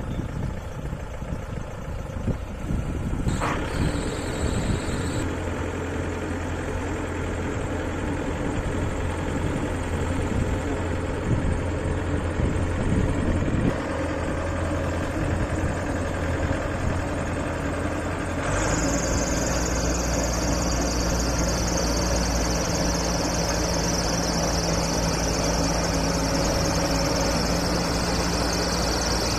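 Crawler rice combine harvester running steadily as it drives into ripe paddy and cuts it. About two-thirds of the way in the sound changes abruptly to an even steadier hum with more hiss on top.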